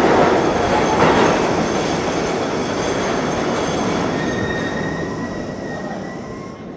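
R32 subway train pulling out of an underground station and running off down the tunnel, its rumble fading steadily, with thin wheel squeals rising over it in the second half.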